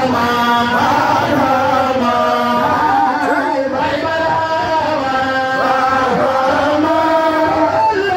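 Voices chanting a religious praise song, with long held notes that glide between pitches and no break.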